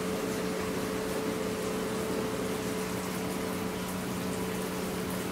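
A steady hum over an even hiss, unchanging throughout.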